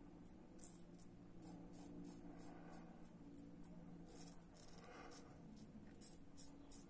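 Goodfellas Italiko double-edge safety razor with a Feather blade scraping faintly through lathered stubble in short strokes, about two or three a second, on the first pass of a wet shave.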